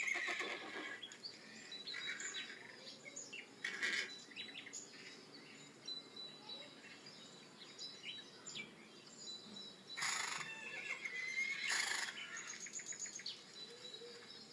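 Horses whinnying, loud quavering calls about four times: at the start, around four seconds in, and twice near ten to twelve seconds in. Small bird chirps can be heard between them.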